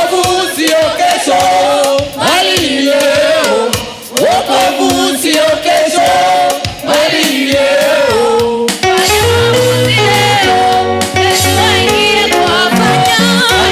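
Gospel choir singing with instrumental backing; a steady bass line comes in about two-thirds of the way through.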